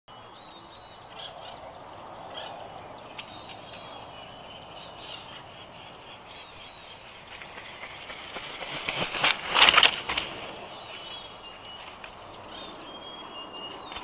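Small birds singing high, short phrases in the background, and about eight and a half seconds in a loud rushing flurry lasting under two seconds as an adult bald eagle flaps in and lands on the nest.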